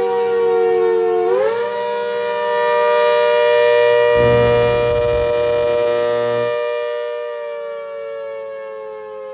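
ACA Hurricane outdoor warning siren sounding two tones together. The pitch sags slightly, climbs about a second in and then holds, while the loudness swells and then slowly fades. A low rumble runs under it from about four to six and a half seconds in.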